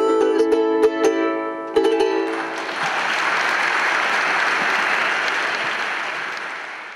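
Ukulele strumming the last chords of a song, stopping about two seconds in, followed by an audience applauding that fades out near the end.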